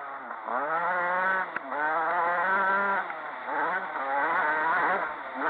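Motocross dirt bike engine revving hard in several throttle bursts, each climbing in pitch, with short drops in between as the throttle is rolled off and on around the track.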